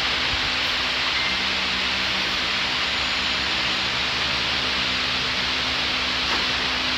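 Steady rushing air noise of a wall-mounted fan running, with a faint steady low motor hum underneath.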